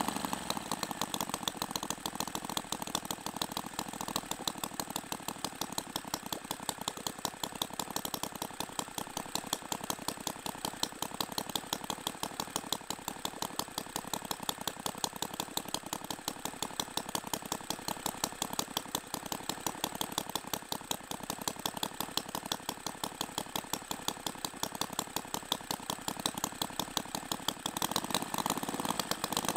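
Jerry Howell model V-twin petrol engine running steadily with a fast, even beat. Its note changes as the throttle is worked, at the very start and again near the end.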